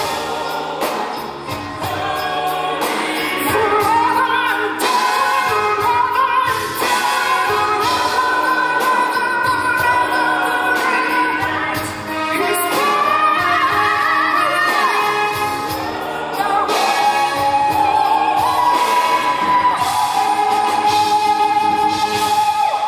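Live orchestra with drum kit accompanying singing, a sustained pop-style ballad passage. It ends on a long held high note from a female singer over the last few seconds, which stops as the song finishes.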